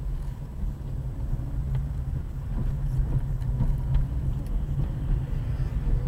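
Steady low rumble of a running vehicle, with a few faint ticks over it.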